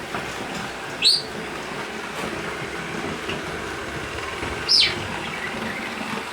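Robot vacuum cleaner running with a steady motor and brush whir. Two short high squeaky chirps cut through it, one rising about a second in and one falling near the middle.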